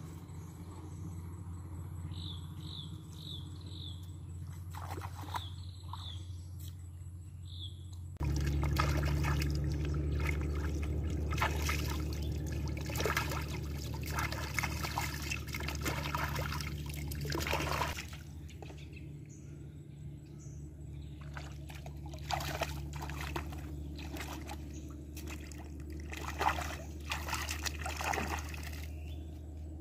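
Water splashing and trickling as a whole raw chicken, and then vegetables, are rinsed by hand in shallow river water, with many short splashes. In the first eight seconds, before the washing, there are only quick runs of short high chirps over a steady low background.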